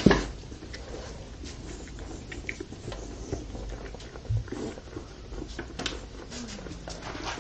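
Dogs' claws clicking and scuffing on a hard floor, with a thud right at the start and a softer thump about four seconds in.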